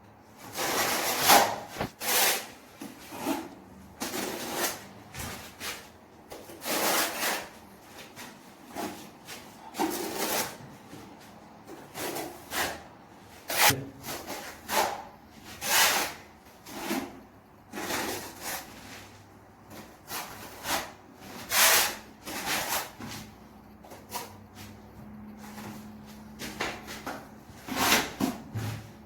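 Hand tool scraping against a surface in repeated, irregular strokes, roughly one a second, each short and rasping.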